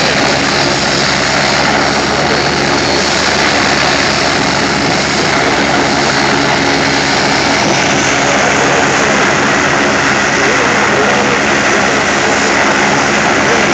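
Agusta A109 twin-turbine helicopter running on the ground with its main rotor turning, a loud, steady sound of engines and rotor before lift-off.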